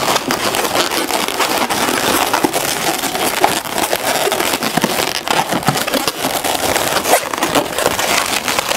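Latex 260 modeling balloons rubbing and squeaking against each other as they are twisted and wrapped by hand, a dense, unbroken run of small crackles and squeaks.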